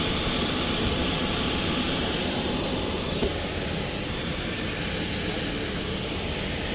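Jet airliner running at the stand: a steady loud rushing noise with a high, even whine on top. It eases slightly about halfway through.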